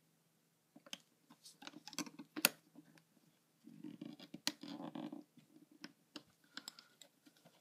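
Metal loom hook clicking against clear plastic loom pins and rubber bands as they are hooked and pulled over: a scatter of small sharp clicks, with a short rubbing scrape about four seconds in.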